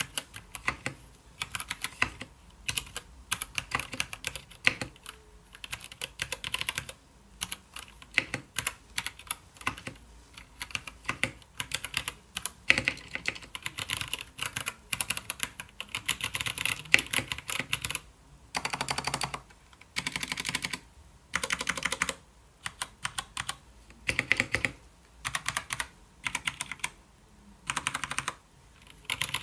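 Anne Pro 60% mechanical keyboard with dampened Gateron Brown tactile switches being typed on: steady typing through the first half, then short dense bursts of rapid keystrokes with brief pauses between them.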